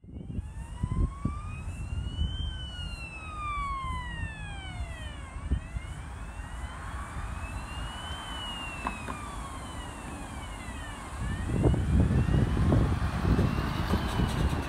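Fire engine siren in a slow wail, rising and falling about every six seconds, under steady road-traffic noise; nearby traffic gets louder about three quarters of the way through as cars pass close by.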